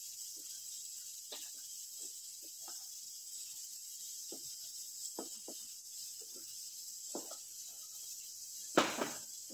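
Spatula scraping and tapping in a nonstick frying pan while stirring a thick vegetable filling: scattered soft scrapes and clicks, then one loud knock against the pan near the end, over a steady hiss.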